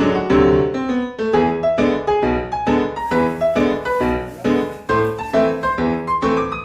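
Background piano music: a steady stream of struck notes, several a second, over a low bass.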